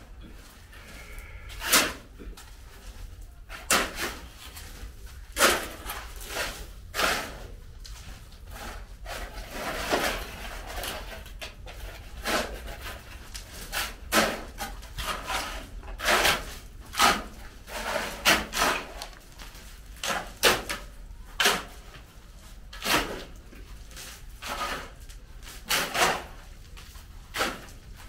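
Several steel shovels scraping and digging into piles of sand and gravel, in short irregular strokes about one every second or two.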